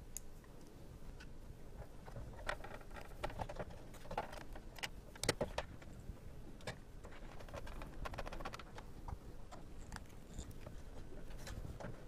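Scattered light clicks and small metallic rattles of a screwdriver and hands working in a steel PC case, tightening the motherboard screws. The loudest is a sharp clack about five seconds in.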